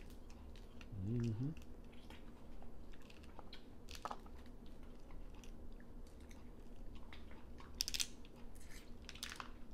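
Close-up eating sounds of steamed blue crab: chewing and mouth sounds, with scattered sharp crackles and clicks as shell is cracked and picked. A short hummed "mm" comes about a second in.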